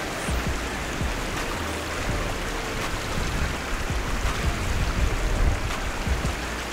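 Small creek's water running steadily, an even rushing hiss, with a low uneven rumble underneath.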